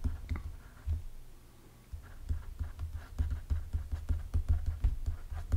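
Pen stylus tapping and scratching on a tablet screen during handwriting: a run of small, irregular taps and knocks, sparser for a moment about a second in.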